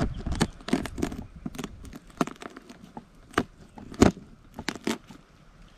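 Knife blade scraping, cracking and clicking against a cooked swimming crab's shell as the meat is picked out: a run of irregular sharp clicks and crackles, the loudest about four seconds in, thinning out near the end.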